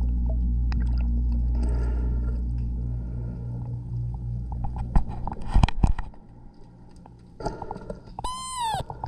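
Machinery heard underwater beside a boat hull: a steady low hum that fades after about three seconds, a cluster of sharp knocks about five to six seconds in, and near the end a short whine that rises and then falls.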